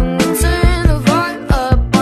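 Background pop song with a steady drum beat and a singing voice.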